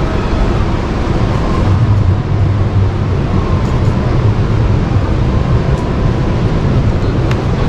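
Steady low rumble of a large exhibition hall's background noise, with a few faint clicks.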